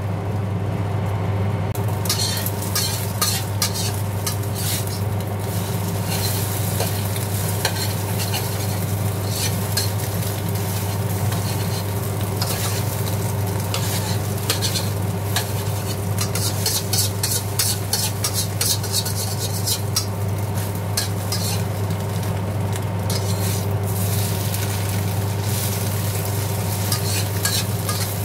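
Beaten eggs sizzling in hot oil in a wok while a spatula stirs and scrapes them against the pan, with frequent scraping and clicking from about two seconds in. A steady low hum runs underneath.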